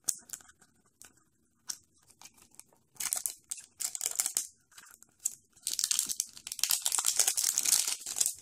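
A Mashems blind-bag packet being torn open along its tear strip, its foil wrapper crinkling and crackling in irregular bursts that grow denser and continuous over the last few seconds. A few light clicks come before it.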